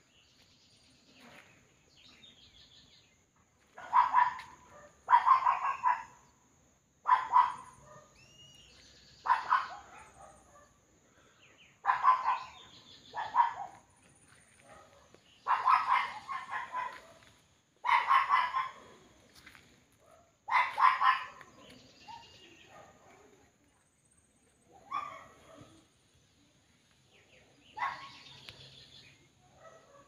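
A dog barking in repeated bouts every one to three seconds, starting about four seconds in, over a steady faint high-pitched whine and a few bird chirps.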